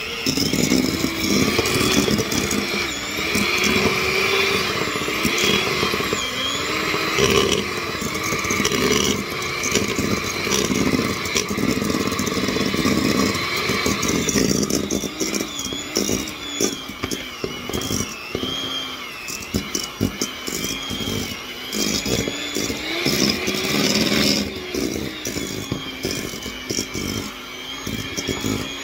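Electric hand mixer running in a stainless steel bowl, creaming butter and sugar. Its motor whine wavers up and down in pitch as the beaters meet the mix, with frequent short clicks and knocks.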